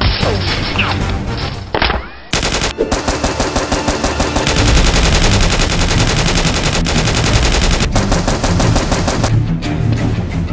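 Rapid automatic gunfire, a long continuous stream of shots with a brief break about two seconds in.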